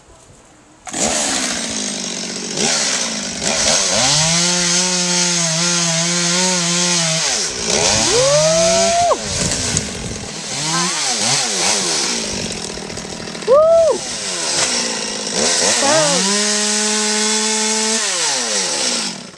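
Gas chainsaw working in pepper tree limbs, starting about a second in. The engine holds lower, steady pitches for stretches while cutting, with quick rising revs between cuts, and its pitch falls away near the end.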